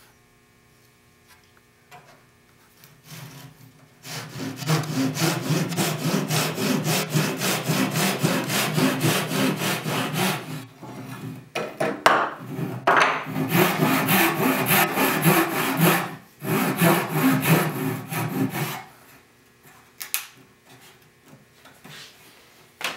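Gyokucho Japanese pull saw with a rip blade cutting down a tenon cheek in 8/4 sipo (African mahogany), in quick, steady back-and-forth strokes. The sawing starts about four seconds in, breaks off briefly twice, and stops a few seconds before the end, leaving only a few light clicks.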